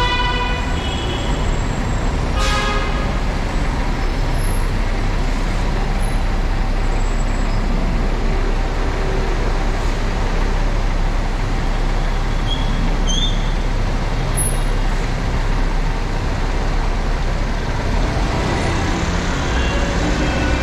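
Steady rumble of slow road traffic behind a city bus in a covered underpass. A vehicle horn sounds at the very start, and a short toot follows about two and a half seconds in.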